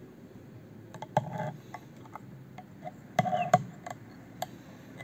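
Scattered light clicks and two short clattering rattles, about a second in and about three seconds in, from hands working fly-tying tools as thread is wound around a hook covered in small plastic beads.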